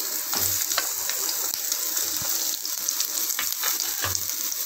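Sliced onions sizzling in a little hot oil in a kadai: a steady hiss with scattered light clicks and a few soft low thuds from the pan.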